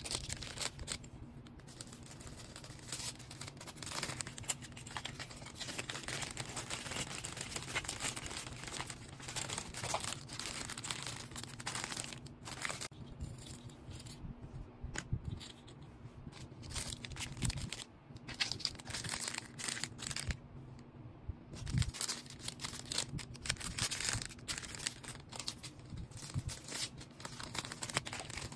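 Packaging being handled by hand as orders are packed: continuous, irregular crackling and rustling of wrapping material, with tearing sounds.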